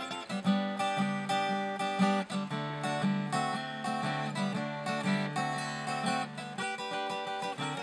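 Acoustic guitar strummed in a steady rhythm, with a harmonica in a neck rack playing held notes over it.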